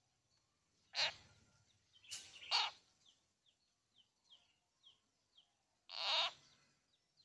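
Frog held by a snake, giving loud distress screams: three cries, about one, two and a half, and six seconds in, the middle one drawn out. Between the second and third comes a run of faint, short, falling chirps, about two a second.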